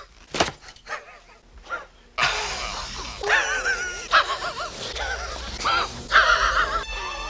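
A man's wheezing laugh: short, breathy, bark-like gasps, repeated. About two seconds in, a new clip starts with a louder background, and the wheezing goes on with a wavering, rising and falling pitch.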